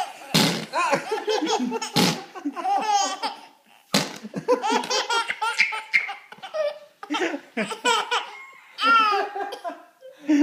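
Baby laughing hard, in repeated bursts of belly laughter with short pauses between them.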